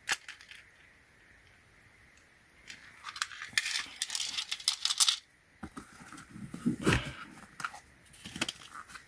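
Steel Torx screwdriver pieces being handled: a sharp click at the start, then a few seconds of clinking and rattling with rustling, followed by scattered clicks and knocks.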